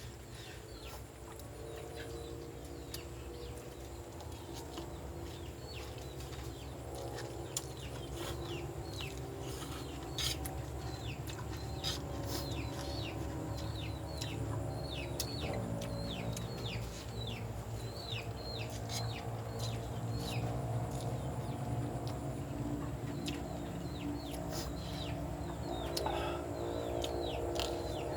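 Chickens clucking and calling, with many short, high calls sliding downward in pitch throughout, over a steady low background noise.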